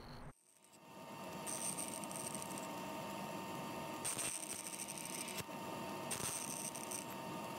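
Bandsaw running with a steady hum, its square-tipped carbide blade cutting into wood three times, about a second each, making a row of small cuts up to a line to clear waste from a window rail.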